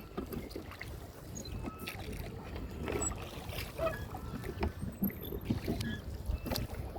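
Rowboat being rowed: irregular oar splashes and wooden knocks over a steady low rumble.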